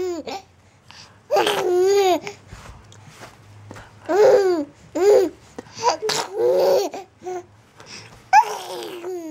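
Baby laughing and babbling in several short bursts, the pitch sliding up and down.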